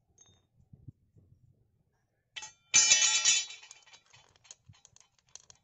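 A loud metallic clang with ringing tones about halfway through, fading over about a second, then light clicks and rattles as the steel bar and chain of a chainsaw attachment are handled against the angle grinder head.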